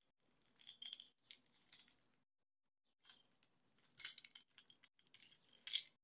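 Keys on a ring jangling and clinking against a small metal multi-tool as it is handled, in four short bursts.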